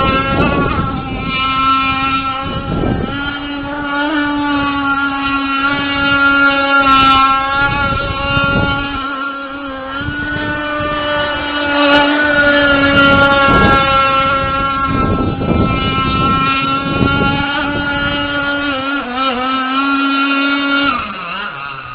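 29.5cc Zenoah two-stroke gas engine with a WYK33 carburettor, driving a radio-controlled racing boat at high, steady revs. The pitch wavers slightly, then drops sharply about a second before the end as the throttle comes off.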